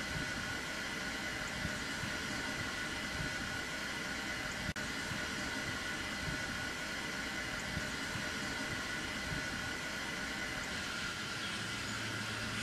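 Steady running noise of a heritage steam train, an even rumble and hiss with no clear beat. There is a momentary drop-out about halfway through.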